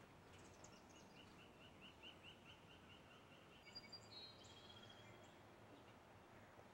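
A songbird singing faintly: a quick run of about a dozen short repeated notes, then a few higher chirps about four seconds in, over a steady hiss.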